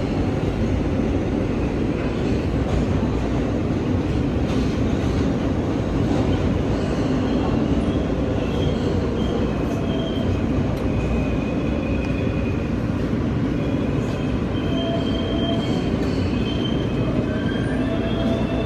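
R143 subway car running between stations, heard from inside the car: a steady rumble of wheels on the rails. High thin squealing tones come and go through the second half.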